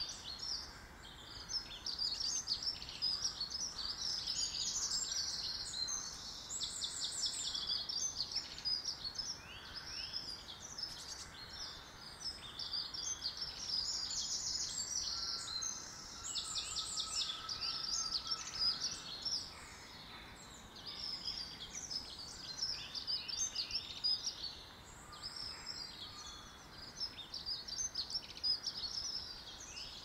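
Woodland songbird chorus: several small birds chirping and singing at once, overlapping, with a few fast trills.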